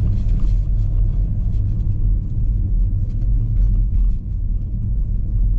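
A car being driven at road speed: a steady low rumble of engine and tyre noise.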